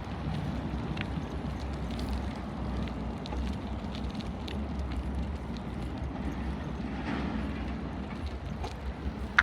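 Bicycle being ridden: a steady low rumble of tyres and wind on the microphone, with scattered small clicks and rattles from the bike.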